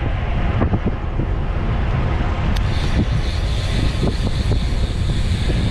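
Strong wind buffeting the microphone of a camera on a moving road bicycle, a steady heavy rumble with a hiss of air and road noise on top.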